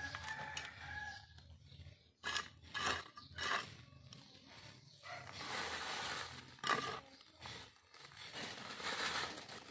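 Black plastic polybag crinkling and soil crumbling and scraping as hands pack earth around a coconut seedling. The rustles come unevenly, with louder bursts about two to three and a half seconds in and again near seven seconds.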